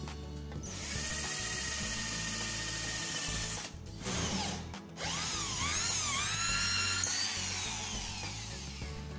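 Electric drill running as it bores holes through a white laminated board, with two short pauses midway.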